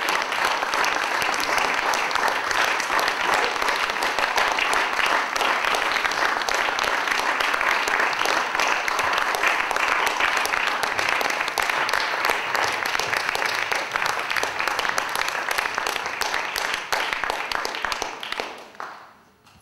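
Audience applauding steadily, the dense clapping fading out near the end.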